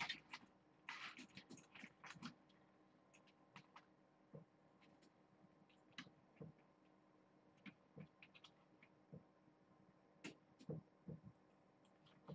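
Near silence broken by faint, scattered taps and knocks of a cat moving about, with a short rustle about a second in and a few louder knocks near the end.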